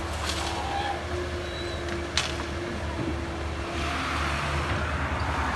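Komatsu PC138US excavator's diesel engine running steadily under load while the machine tips a bucket of soil into a dump truck and swings back, with a steady hum throughout and a single sharp knock about two seconds in.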